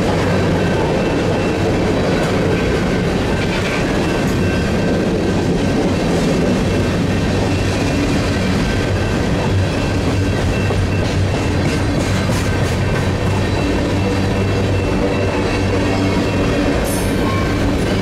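Loaded covered hopper cars of a freight train rolling past at speed: a steady rumble of steel wheels on rail with clickety-clack of the wheels over the track.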